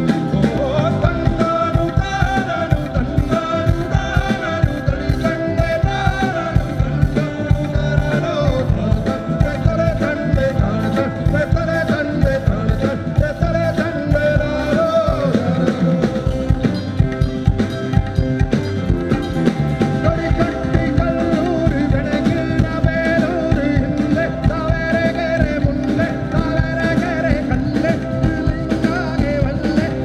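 Live rock band playing with a steady drum beat, bass and guitar, and a singing voice over it.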